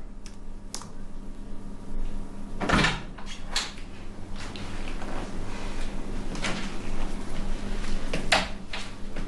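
A room door opening about three seconds in, with a latch click, followed by a few light clicks over a steady low hum.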